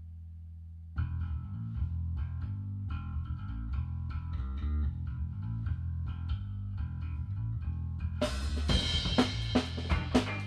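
Background music: a held low bass note, then a bass-and-guitar groove starting about a second in, with a drum kit joining near the end.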